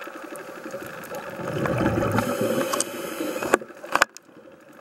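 Scuba diver's regulator exhaling, a gurgling rush of bubbles heard through an underwater camera housing, swelling in the middle. Two sharp clicks come about half a second apart near the end, after which it drops much quieter.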